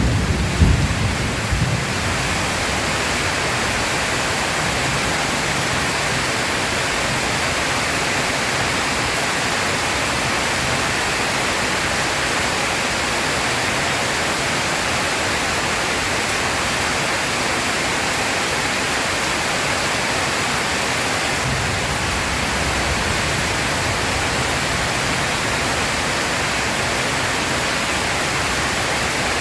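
Heavy, steady rain pouring down, with the last of a thunder rumble dying away in the first couple of seconds.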